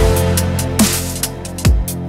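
Electronic dance track played from Ableton Live, with a deep kick drum falling in pitch about every 0.85 s over a sustained bass line and ticking hi-hats. The QuNeo controller's pads are triggering its beat-repeat effects live.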